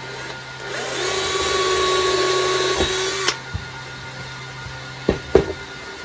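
Cordless drill spinning up and drilling into the wooden bench top with a steady whine for about two and a half seconds, then stopping abruptly. Near the end there are two knocks as the drill is set down on the bench.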